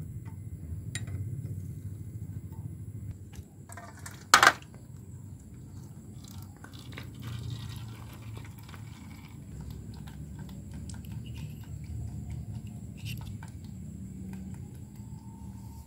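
Scattered light metallic clicks and clinks of a 19 mm ring spanner working the oil drain bolt on a motorcycle engine's crankcase, with one sharp, louder clink about four seconds in, over a low steady hum.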